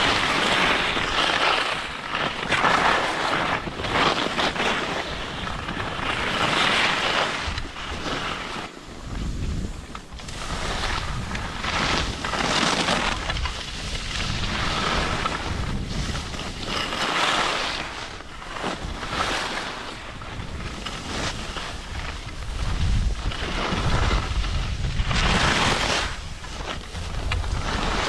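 Alpine skis scraping across the piste snow, a hiss that swells with each turn about every two seconds. Wind rumbles on the microphone, heaviest near the middle and toward the end.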